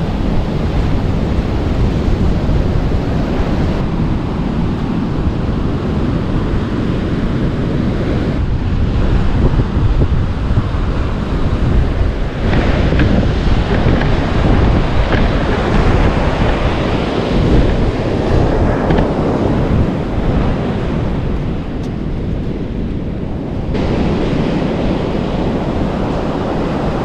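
Ocean surf breaking and washing up the beach, with wind buffeting the microphone as a heavy low rumble.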